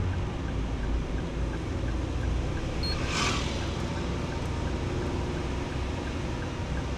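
Steady low rumble of a car's engine and tyres heard from inside the cabin while driving slowly, with a brief whoosh about three seconds in.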